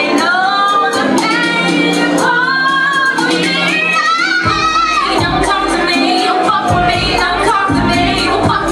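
A woman singing a contemporary R&B song live over instrumental accompaniment, her voice sliding in long gliding runs. A deep bass comes in about halfway through.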